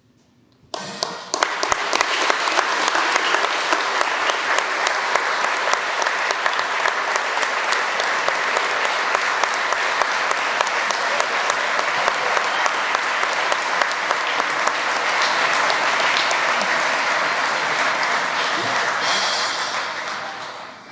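Audience applauding: the clapping starts abruptly about a second in, holds steady, and dies away near the end.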